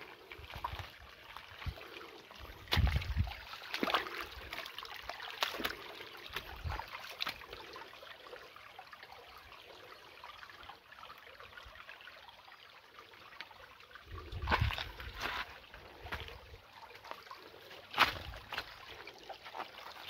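Shallow rocky creek trickling over stones, with scattered sharp clicks and a few low bumps.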